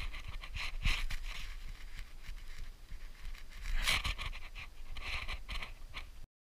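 Dog sniffing and breathing right at the microphone in short, irregular hissy puffs, with a few low bumps against the camera. The sound cuts off suddenly near the end.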